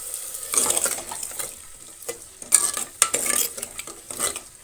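Water poured into a hot pot of frying onions, sizzling, then a spoon stirring and knocking sharply against the pot a few times.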